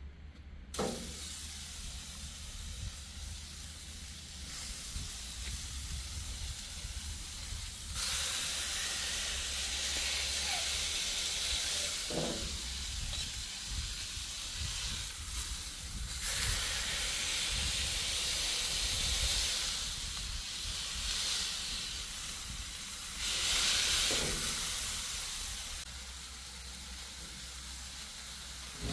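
Ground beef sizzling on a hot griddle plate on a gas grill, smashburgers being cooked. The hiss is steady, swells louder in several stretches and has three brief knocks along the way.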